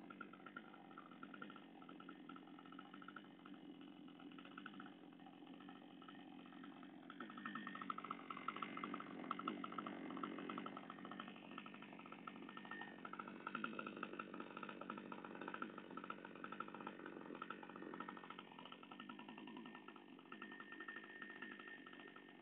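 SADKO GCS-560E 3.4 hp two-stroke petrol chainsaw running at idle during its break-in, growing louder for a few seconds about seven seconds in before settling back.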